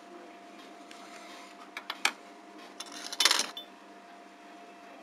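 Handling noise from a Nokia 108 phone's battery being taken out of its compartment: a few small plastic clicks about two seconds in, then a short, louder scraping rustle a little after three seconds. A faint steady hum runs underneath.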